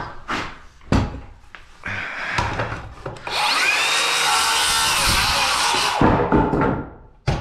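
A couple of wooden knocks as a 2x4 is handled, then a power saw cutting through the 2x4 for about three seconds, likely trimming a stud to length. Its motor whine bends in pitch as the blade bites, and it stops suddenly.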